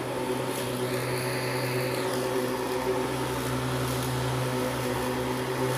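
Walk-behind lawnmower running steadily while being pushed through grass, a constant motor hum with a brief higher whine about a second in.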